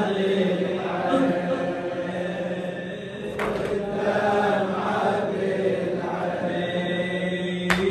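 A male radood chanting a Shia latmiya lament over a microphone in long held notes. A short sharp hit cuts across the chant about three and a half seconds in, and another comes near the end.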